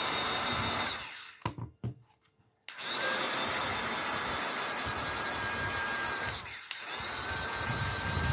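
Battery-powered toy bubble gun's small motor whirring with a steady high whine, stopping about a second in, starting again near three seconds and running on with a brief break near the end.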